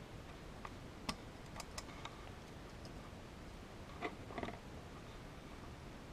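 Faint light clicks and taps of small metal parts: a slot car chassis and a small hand tool being handled while its pickup shoes are bent into adjustment. A few single clicks in the first two seconds, then a short cluster of taps about four seconds in.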